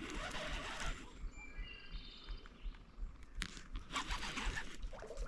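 A bird calling with a short run of high notes about a second and a half in, over quiet outdoor background. There is a brief rush of noise at the start and a few light clicks later.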